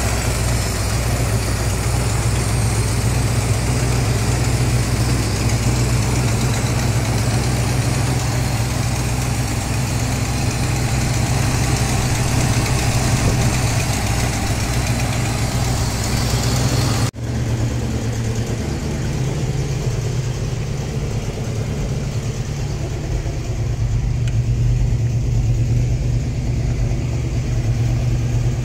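1987 Ford F250 pickup's engine idling steadily. After a brief break about two-thirds of the way through, the sound is duller.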